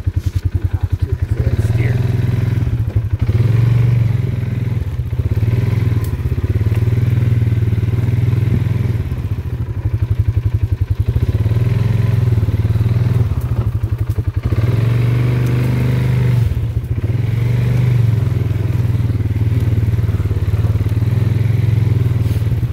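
Off-road vehicle's engine running as it is ridden along a rough trail, the engine note swelling and easing every few seconds as the throttle opens and closes.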